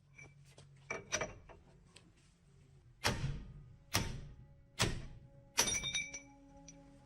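A series of sharp knocks and thunks, light at first, then four heavy blows about a second apart. A brief ringing hangs on after the last one.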